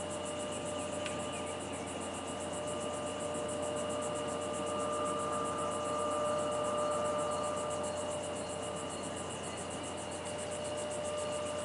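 Steady night-time background hum and hiss, with several steady tones and a fast, even pulsing high in pitch. There is a faint click about a second in.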